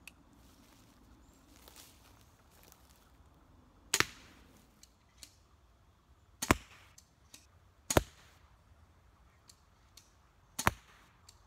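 Test shots from a Bolt Crossbows Seeker crossbow pistol (80-pound draw), with its bolts striking a target bag: four single sharp cracks, the first about four seconds in, then one every one and a half to two and a half seconds.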